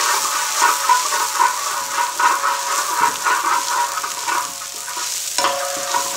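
Chopped shallots and garlic sizzling in hot oil in a large steel disc pan, with a metal spoon stirring and scraping across the pan in quick repeated strokes.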